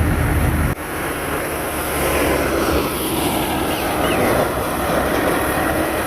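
Tractor-driven wheat thresher running steadily, a dense mechanical din with the tractor engine's low drone underneath. It drops out for an instant a little under a second in.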